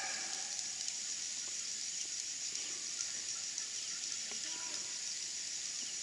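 Steady, high-pitched hiss of a rainforest insect chorus, with a fine, even flutter.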